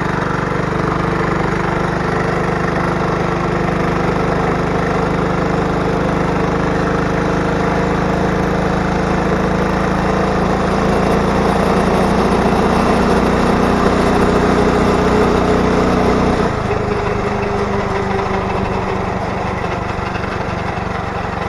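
Small gas engine of a homemade motorized bicycle running under throttle while riding, its pitch slowly climbing. About 16 seconds in the throttle comes off and the engine note drops suddenly to a lower, quieter run.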